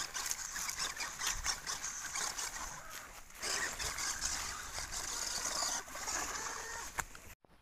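A plastic toy dump truck converted to radio control drives over a dirt path strewn with dry leaves and twigs: its small electric motor and gears whir while the tyres crackle irregularly over the debris. The sound cuts off abruptly just before the end.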